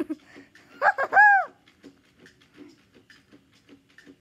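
A short, high squeal that rises and falls in pitch, about a second in, followed by faint, regular ticking a little over twice a second.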